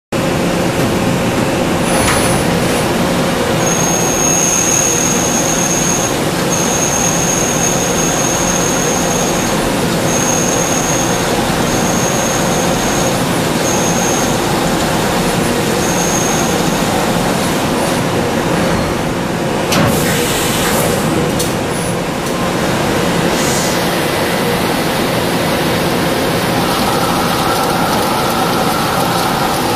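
Matsuura CUBLEX-42 five-axis mill-turn machine cutting a solid billet under coolant spray: a loud, steady wash of spray and cutting noise. A high-pitched whine comes and goes in short runs in the first half, with a single knock about twenty seconds in.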